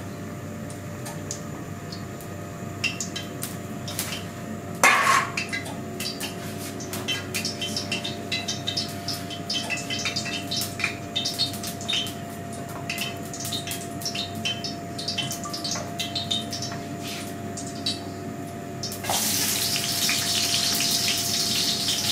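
Cooking oil heating in a wok over a gas flame, with scattered small crackles and pops and one clunk about five seconds in. About 19 seconds in, a chopped ingredient hits the hot oil and it breaks into a loud, steady sizzle.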